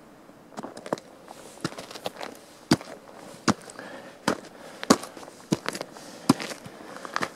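Footsteps crunching on frozen snow and ice, a sharp crunch with each step at about four steps every three seconds, starting about half a second in.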